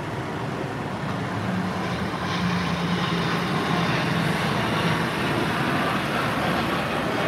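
Boeing C-17 Globemaster III's four jet engines as it flies low overhead: a steady jet rumble with a low drone that grows louder over the first two or three seconds and then holds.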